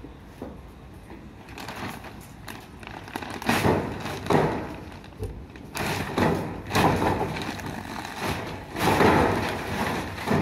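A silver reflective foil roof-insulation sheet crackling and rustling as it is bunched up and lifted, in irregular loud bursts starting about a second and a half in.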